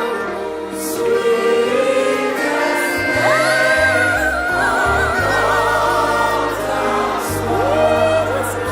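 Worship music: a slow hymn sung by a group of voices with instrumental backing. About three seconds in, a lead voice slides up and holds a long note with vibrato while low bass notes come in beneath.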